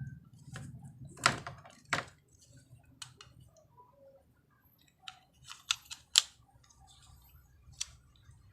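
Irregular sharp clicks and taps of small hard plastic parts and tools being handled while a remote control is worked on, loudest about a second in and again around six seconds in.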